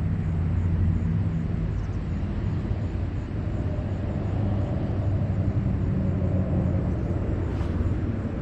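Steady, low motor drone from a distant engine.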